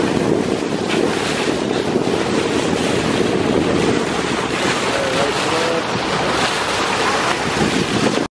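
Water rushing and splashing off the bow of a moving boat, with wind buffeting the microphone, as a steady rush. It cuts off suddenly just before the end.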